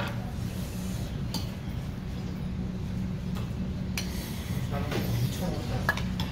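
Metal spoons scraping and clinking against stainless-steel bowls and a stone pot as food is dished out, a few light clinks over a steady low background hum.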